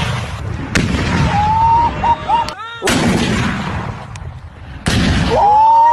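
Three loud gunshots about two seconds apart, each followed by a long rolling echo.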